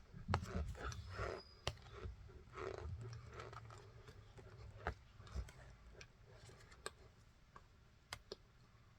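Someone eating raw cornstarch: soft crunching and sharp mouth clicks, busiest over the first few seconds, then only scattered clicks.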